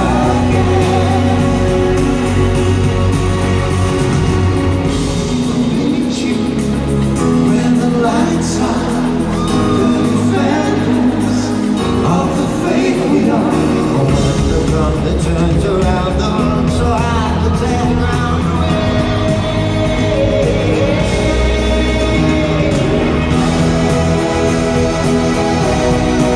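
Live pop band with drums, guitars and sung vocals, heard from the audience in a large arena with its echo.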